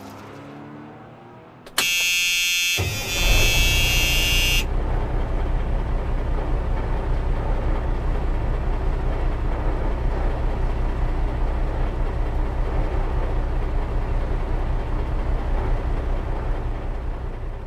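A harsh, high buzzing tone sounds for about three seconds. Then a truck engine sound effect for the toy tow truck runs steadily, fading out near the end.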